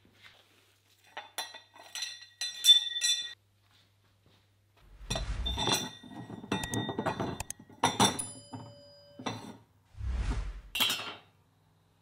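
Metal chain sprockets being handled and set down on a wooden bench: runs of sharp metallic clinks with brief ringing, and two dull thuds about five and ten seconds in as a sprocket is laid on the wood. After about eight seconds one piece is left ringing for about a second.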